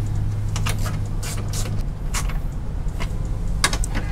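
A few irregular sharp clicks from a small hand ratchet and tool handling as screws are tightened into a plastic grille, over a steady low hum that fades about two seconds in.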